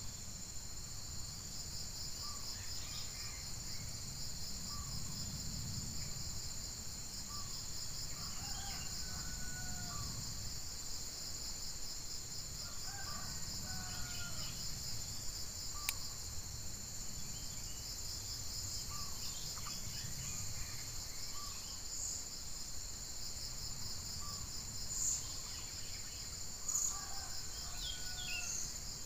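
Steady, pulsing high-pitched insect chorus with a low background rumble, and faint short calls now and then. A single sharp click comes about halfway through.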